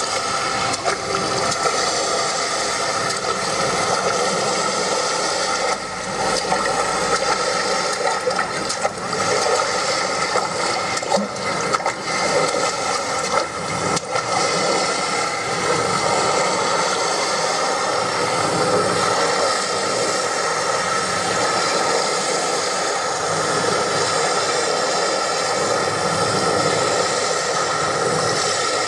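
Ambient dance soundtrack: a continuous rushing hiss with steady held tones underneath, and no beat or voice.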